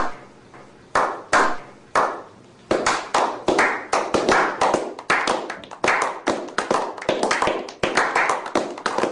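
A small group of people slow-clapping. It starts as single claps about a second apart, and from about three seconds in more hands join and the clapping quickens into steady applause.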